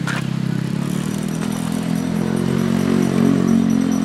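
An engine running steadily, its pitch rising slightly about a second in.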